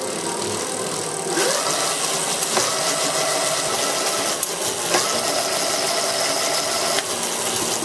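48-volt 350-watt geared hub motor running and turning the go-kart's chain drive: a steady mechanical whir with chain rattle. It gets louder about a second and a half in, and a whine comes and goes as the motor speeds up and slows down.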